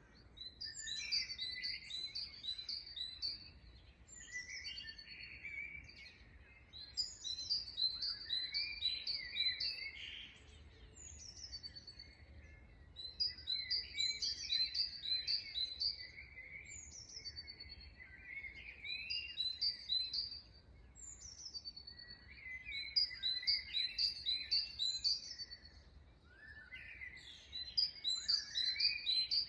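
Songbirds chirping and singing in a morning chorus: one bird repeats a quick series of high, falling notes every few seconds, with lower chirps mixed in.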